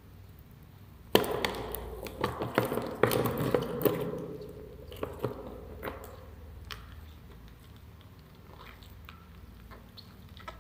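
Wet crackling and crunching clicks as a black scorpion chews into a giant centipede's head. The crunching starts suddenly about a second in, runs densest for about three seconds, then thins to scattered clicks.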